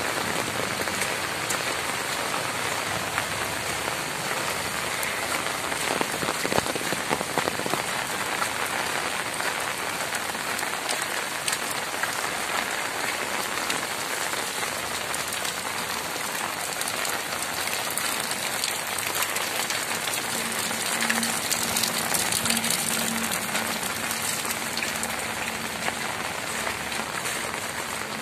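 Heavy rain falling steadily: a constant hiss with many close drops tapping.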